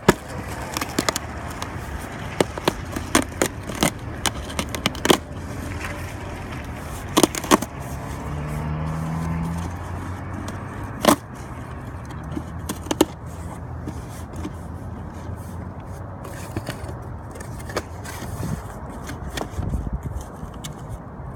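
Cardboard shipping box being handled and its flaps pulled open, with sharp clicks and scrapes, most of them in the first five seconds. A car passes on the road about eight to ten seconds in, its engine and tyres swelling and fading.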